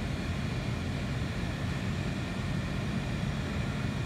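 Steady low rumble with a faint hum, even throughout, with no distinct clicks or other events.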